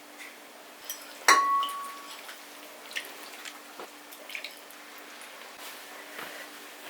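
Small kitchen handling sounds: light clicks and taps, with one sharp clink about a second in that rings briefly at a clear pitch, like glass or china being struck.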